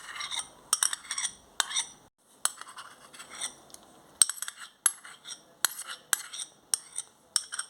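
Metal spoon clinking and scraping against a bowl while teaspoons of tomato ketchup are spooned in: repeated sharp clinks at an uneven pace, with soft scraping between them.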